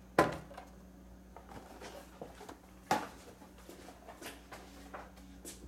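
A carded action figure being handled and set aside: a few sharp taps and clicks of the cardboard card and plastic blister, the loudest about a quarter second in and another near three seconds, over a faint steady low hum.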